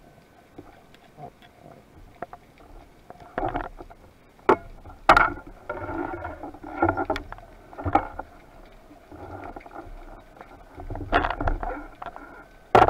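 Underwater handling noise as a speared fish is hauled in on the speargun: irregular scraping and rustling against the camera housing, broken by a few sharp knocks, the loudest near the end.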